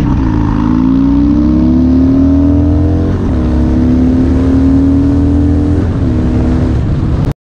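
Harley-Davidson Dyna Twin Cam V-twin through a Bassani Road Rage 3 two-into-one exhaust, accelerating on the road. Its pitch climbs and drops back twice as it shifts up, about three and six seconds in, then holds steady. The sound cuts out briefly near the end.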